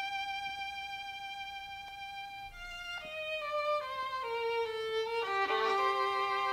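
Background music on violin: one long held note, then a run of notes stepping downward, settling onto a new note near the end.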